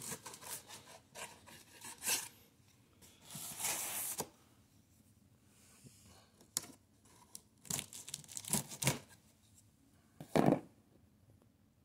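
Packing tape on a cardboard box being slit and torn open: irregular tearing and scraping strokes, with a longer rasp a few seconds in and a louder stroke near the end.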